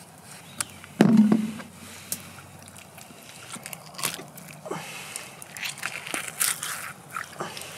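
Knife and hands gutting a whole brown trout on a plastic cutting board: scattered wet scraping and small clicks, with one loud knock about a second in. A campfire crackles.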